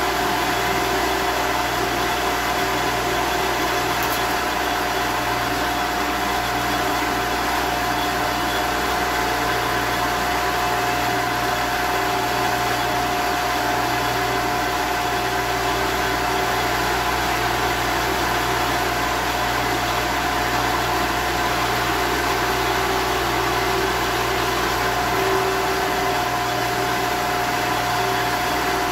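A 1954 Shopsmith running steadily in drill-press mode, a constant motor hum with a clear steady whine, as a Forstner bit bores into wood.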